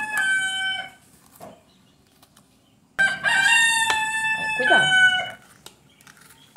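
A rooster crowing twice: the tail of one long crow ends about a second in, and a second full crow starts about three seconds in. That crow is held on a steady pitch for about two seconds before dropping at the end.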